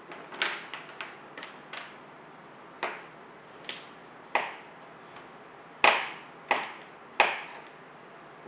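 Kitchen utensils tapping and clinking on hard surfaces: about a dozen sharp, irregular taps, each with a short ring, the loudest ones in the second half.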